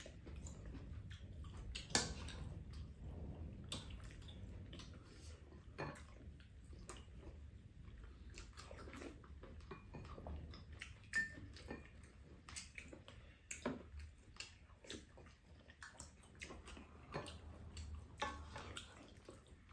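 Spoons clicking and scraping against bowls and a frying pan at irregular intervals, with quiet eating sounds in between.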